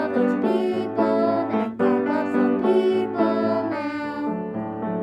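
Two voices singing the refrain of a song about Jonah with piano accompaniment; the singing stops about four seconds in and the piano plays on.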